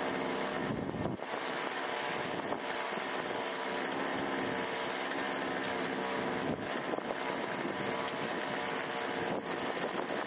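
A powered earth auger's small motor running steadily at a constant speed, with a few scrapes of a steel spade in dry, loose soil.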